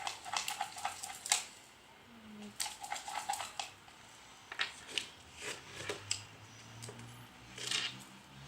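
Spoon stirring slime mixture of glue and boric acid water in a container, with clusters of quick clicks and scrapes against the pot.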